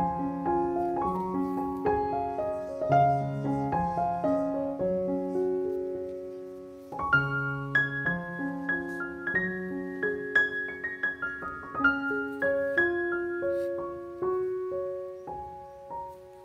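Background piano music: a slow melody of single notes over low chords, fading briefly about six seconds in before a new phrase begins.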